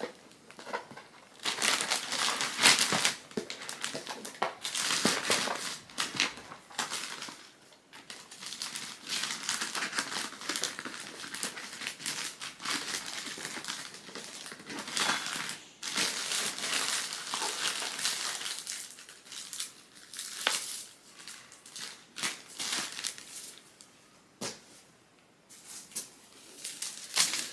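Pink printed wrapping crinkling and rustling in irregular handfuls as a small package is wrapped by hand, with brief quieter pauses.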